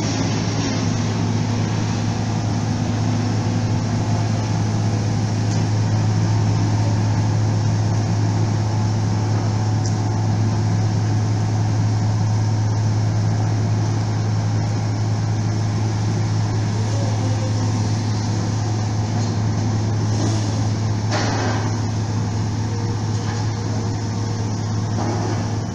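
Steady low drone of a ro-ro ferry's machinery while its bow ramp is lowered, with two brief surges of noise near the end.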